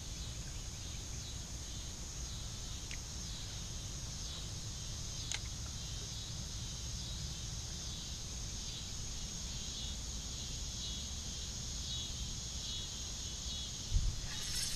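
A steady high-pitched insect chorus over a low rumble, with a single knock near the end.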